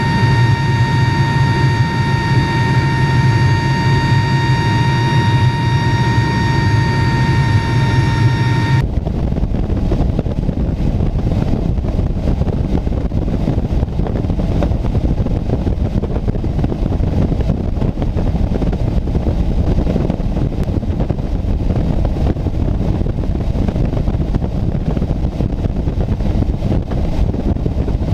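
Military transport aircraft's engines and slipstream heard from the open cargo ramp in flight: a steady engine whine over a low drone, which changes abruptly about nine seconds in to a steady low rush of wind and engine rumble.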